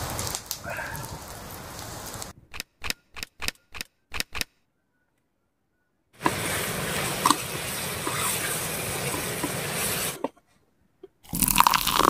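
Campfire crackling, then a rapid string of short chopped-off bursts and a pause of silence. A steady hiss follows, and a louder hiss with sharp crackles starts near the end.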